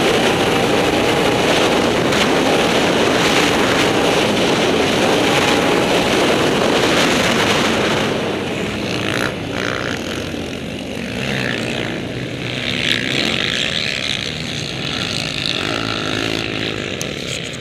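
Can-Am Outlander 800 XXC quad's V-twin engine running hard under heavy wind rush on a helmet-mounted camera. About eight seconds in the engine and wind ease off and the sound turns less even.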